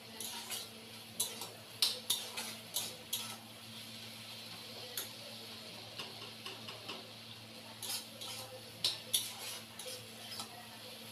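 Spatula scraping and clicking against a kadai as taro leaves and stems are stirred, in irregular bursts of clicks: a busy run at the start, a sparser stretch, then another run in the second half.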